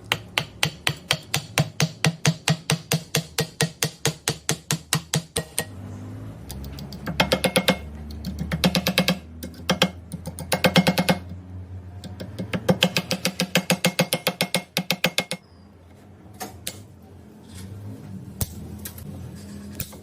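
Hammer blows struck in quick, even runs of about four a second, each with a short metallic ring, broken by brief pauses; a few single knocks near the end.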